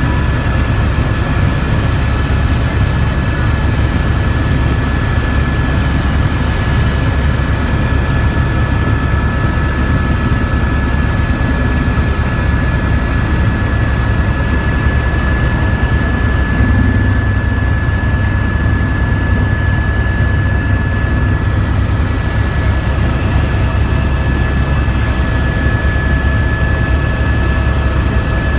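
Helicopter in flight: a loud, steady low drone with a constant high whine over it.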